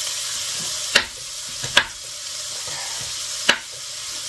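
Ribs and garlic sizzling steadily in a frying pan, with chopped frozen cauliflower just added. Three sharp knocks come through the sizzle, about one, two and three and a half seconds in.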